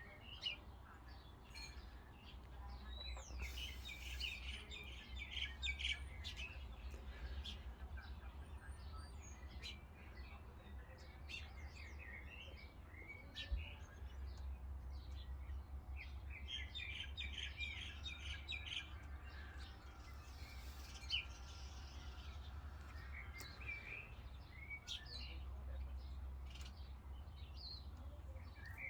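Several small birds chirping and calling on and off in short tweets and trills, over a steady low rumble, with a couple of sharp clicks.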